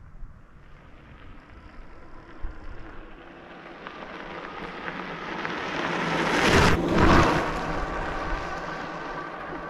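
Electric bike riding past over a gravel track: tyres crunching on the loose stones, with a steady motor whine. The sound grows louder as the bike approaches, is loudest about two-thirds of the way through as it passes, then fades.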